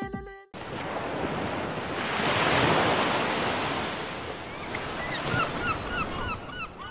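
Logo-reveal sound effect: a rush of surf-like noise swells up about half a second in, peaks in the middle and eases off. Short chirps like bird calls repeat quickly through the last two seconds.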